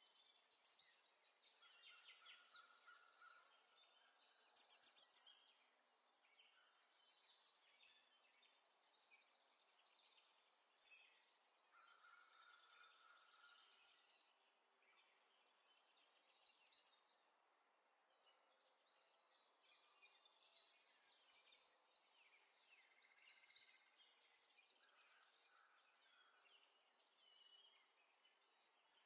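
Faint bird chirps and trills in short bursts every couple of seconds, over a quiet background.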